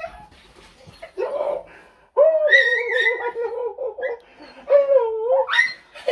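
Cocker spaniel whining in excited greeting: a long, high, wavering whine of about two seconds, then another that climbs sharply in pitch near the end.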